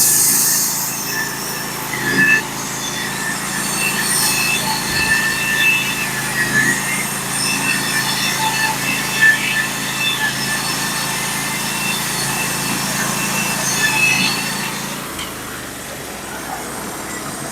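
Band sawmill running under load as its band blade cuts through a white pine log: a steady engine hum under a high, metallic singing from the blade. It gets somewhat quieter near the end.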